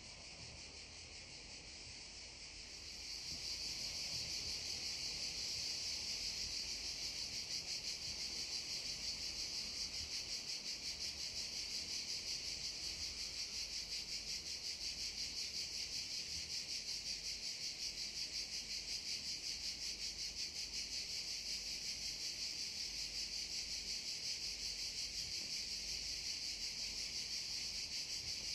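Cicadas singing: a steady high-pitched drone with a rapid pulse, growing louder about three seconds in and then holding.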